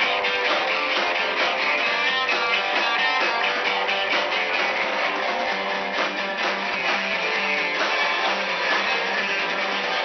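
Live band playing loudly: electric guitars strumming over bass and drums, with a steady beat throughout.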